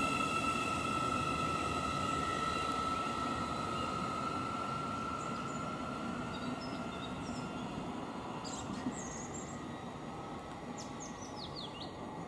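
Thameslink Class 700 electric multiple unit moving away, with a steady high traction whine and a low rumble that fade over the first half as it recedes. Small birds chirp in the second half, with several quick chirps near the end.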